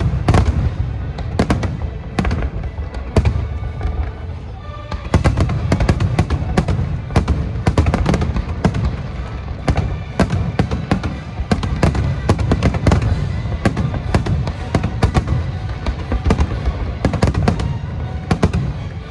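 Aerial fireworks shells bursting in rapid, overlapping succession: a dense barrage of deep booms and sharp cracks, with music playing underneath.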